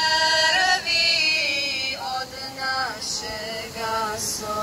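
A vocal group singing a devotional song live: long held, melodic notes that slide between pitches, with a new phrase beginning about two seconds in.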